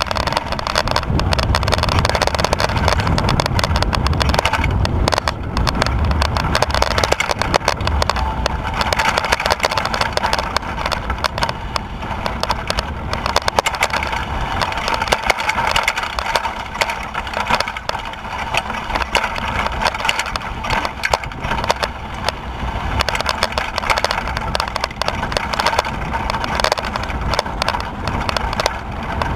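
Mountain bike descending a loose dirt-and-gravel trail: a constant clatter and rattle of the bike and camera mount over stones, with tyre crunch and wind noise on the microphone.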